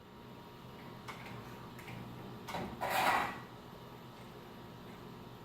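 Garage door torsion spring being wound with winding rods: a few faint metal clicks, then a louder brief scrape about three seconds in, as the spring is given a quarter turn.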